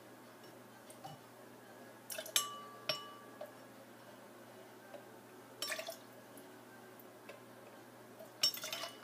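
Metal tablespoon clinking against glass while lemon juice is spooned over ice cubes in a tall glass: a few short clusters of clinks about two, three, six and eight and a half seconds in, the first leaving a brief glassy ring.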